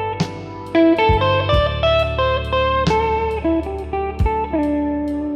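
Instrumental background music: a melody of quick picked notes over long held bass notes, with a fresh strong attack about every second.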